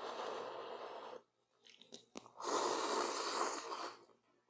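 A person blowing on a chopstick-lift of noodles through pursed lips for about a second, then slurping the noodles in with a louder, longer slurp from about two and a half seconds in, with a few small mouth clicks between.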